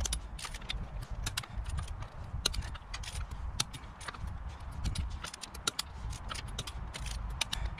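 Ratcheting torque wrench tightening car wheel nuts to 125 Nm, a run of sharp, irregular clicks over a low rumble.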